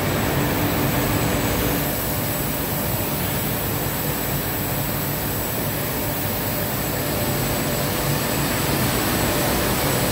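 Steady running noise of plastic-film production machinery (film winding rollers and a blown-film line), with a thin, steady high whine over it.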